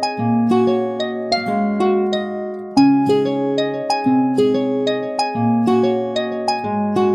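LG phone stock ringtone: a melody of plucked-sounding notes, several a second, that repeats.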